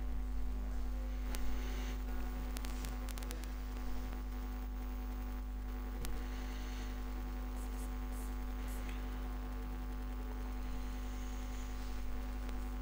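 Steady electrical mains hum, with a few faint clicks scattered through it.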